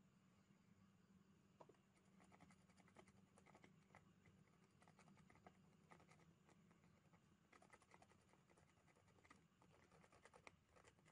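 Faint, irregular scratching and brushing of a tool on an ECU circuit board, scrubbing off corrosion crust, in clusters of short scrapes.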